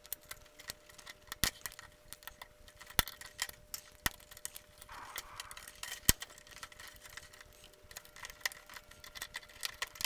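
Screwdriver prying at the thin sheet-metal shield can of a UHF/VHF RF modulator, giving sharp metallic clicks and scrapes every second or so as the can lid is levered off.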